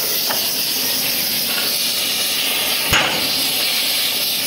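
Steady loud hiss of a gas torch heating the steel of a tank road wheel. A single hammer blow rings on the metal about three seconds in.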